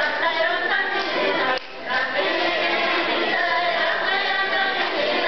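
A women's folk ensemble singing a folk song together, with an accordion accompanying. There is a brief pause between phrases about one and a half seconds in.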